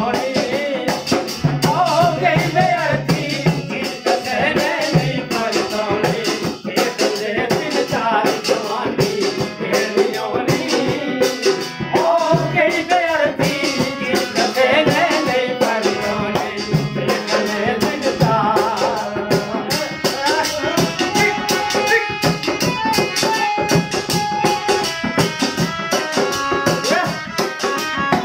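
Live Punjabi folk music: a man singing over a tumbi and harmonium, with a rattling percussion keeping a fast, even beat. From about twenty seconds in the voice drops out and the instruments carry the melody in short steady notes.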